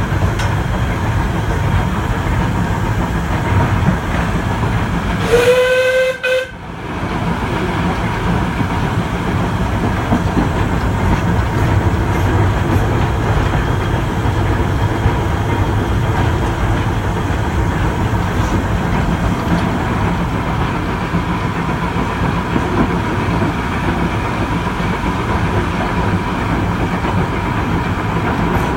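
Steam locomotive running, heard from the footplate: a steady loud rumble and rattle of the engine on the move. About five seconds in, its steam whistle sounds for about a second, pitch rising slightly at the start, and cuts off sharply.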